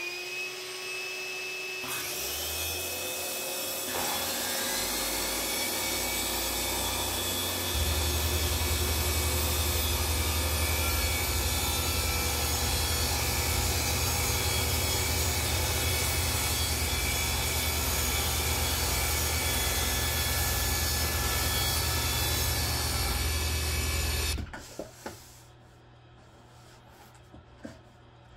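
Several power tools cutting plywood at once: a circular saw, a router and a table saw, with dust-extractor suction. Motors spin up one after another in the first few seconds, with a deep hum joining about eight seconds in. All run steadily, then stop together about 24 seconds in, leaving a few faint clicks.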